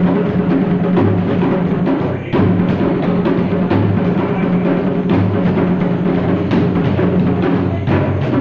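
Loud dance music with a heavy drum beat and a steady bass line.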